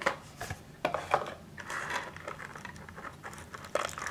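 Hands handling a clear plastic blister tray and in-ear earphones as they are unpacked: scattered light clicks and taps of plastic, with some rustling a little before the middle.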